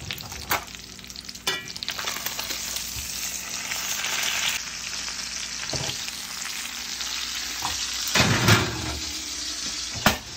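Hot butter and beef tallow sizzling steadily in a cast iron skillet around a pompano, fresh out of the oven, with clicks and scrapes of the pan and utensil as the fish is flipped. A louder clatter about eight seconds in, as the skillet goes back onto the oven rack.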